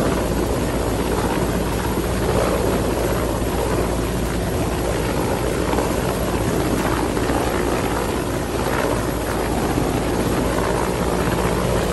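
Helicopter hovering low overhead: a steady, loud rotor and engine noise with no break.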